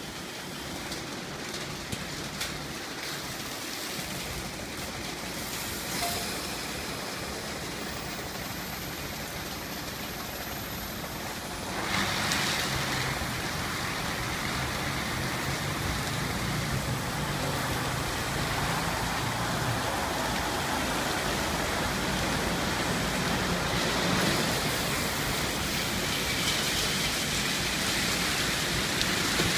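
Belanger Freestyler rollover car wash running: spinning foam brushes and water spray on a car make a steady rushing noise like heavy rain, which gets louder about twelve seconds in.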